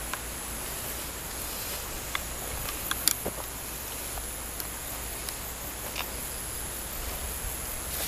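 Steady high-pitched insect drone, with scattered light clicks and rustles of someone walking through tall grass.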